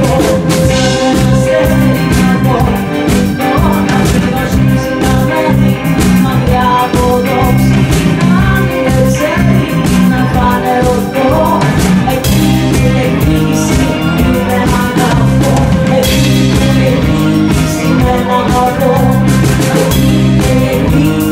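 Live band playing a rock ballad: electric guitar, keyboard and drums, with a woman singing into a microphone over them.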